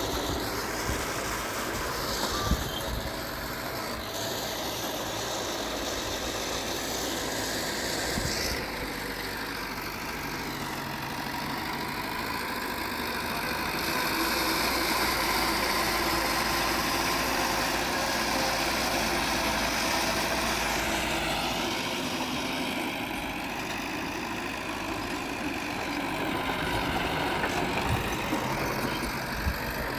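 Heavy diesel earthmoving machinery running steadily, growing louder for a while in the middle and again near the end, with a few sharp knocks.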